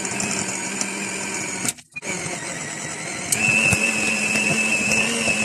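Electric hand mixer running as it beats flour into thick cupcake batter. It cuts out briefly just before two seconds in, then runs again, louder and with a higher whine from a little past three seconds.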